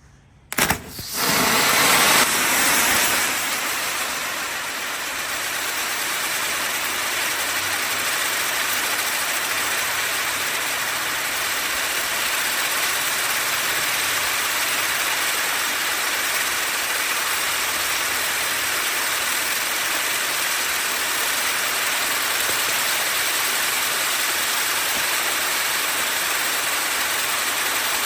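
Pyrotechnic gerbs (red fountains with titanium sparks) on a spinning wheel igniting with a sudden whoosh about half a second in, then burning with a steady, loud rushing hiss.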